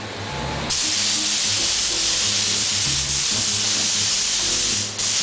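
Compressed-air spray gun hissing steadily in long bursts, with a short release of the trigger just before the end.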